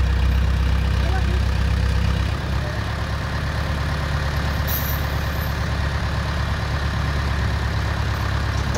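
ACE hydra crane's diesel engine running steadily under load as it hoists an overturned truck. Its low note eases slightly about two seconds in.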